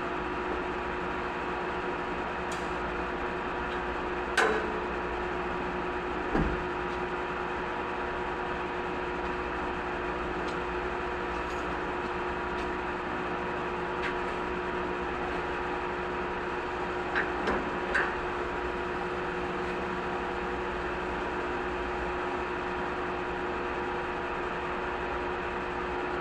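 Steady mechanical hum with a few constant tones in it, broken by a handful of short knocks and clicks: one about four seconds in, another about two seconds later, and a small cluster of clicks about two-thirds of the way through.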